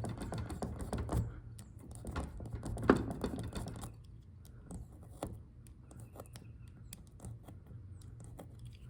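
Utility knife cutting off the excess of a rubber tire plug flush with the tire tread: a run of small scraping clicks, busy for the first four seconds with one sharper snick about three seconds in, then sparser and fainter.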